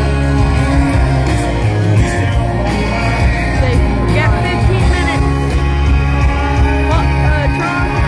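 Live country band playing a rock-style song with a lead vocal over electric guitars, drums and heavy bass, heard from among the audience.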